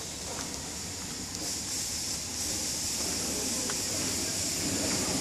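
A steady hiss that grows louder about a second and a half in, over a low rumbling background noise.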